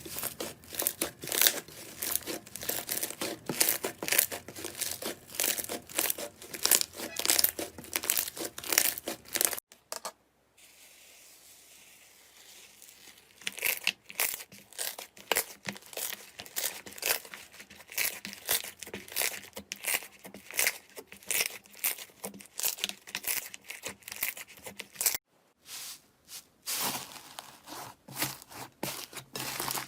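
Slime being squished, stretched and pressed by hand, making rapid sticky clicks and crackling pops. The sound breaks off briefly twice, about 10 and 25 seconds in, and the crackling then resumes.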